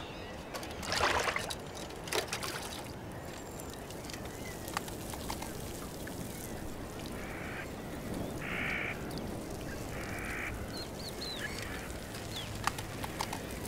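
A large plastic sheet rustles as it is handled, a louder burst about a second in and a shorter one a second later. From about seven seconds in, waterfowl give three short quacks about a second apart.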